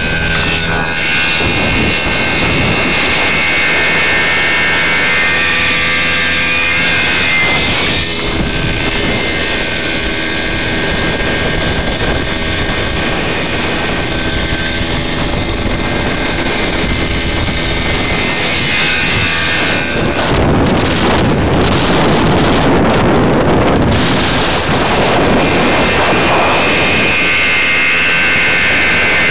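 Husqvarna military motorcycle's two-stroke engine running under way, its pitch shifting now and then as the rider rides along. From about 20 seconds in, a loud rushing noise, likely wind on the microphone, largely covers it for several seconds.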